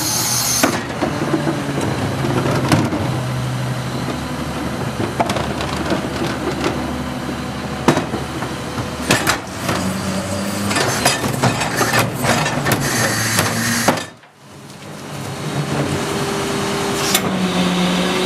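Heil 5000 rear-loading garbage truck running, with the clatter and knocks of trash carts being banged and emptied into its hopper. After a break about two-thirds of the way through, the engine rises to a steady higher pitch as the hydraulic packer blade cycles to compact the load.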